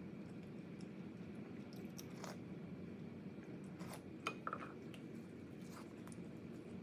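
Close-miked chewing, with soft wet mouth clicks scattered through. About four seconds in, a sharper slurp as food is sipped from a spoon.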